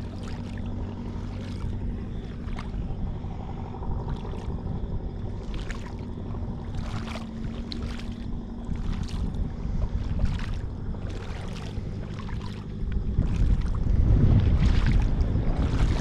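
Shallow seawater lapping in small, hissy wavelets over a steady low hum of a boat engine. Wind buffets the microphone, growing louder about thirteen seconds in.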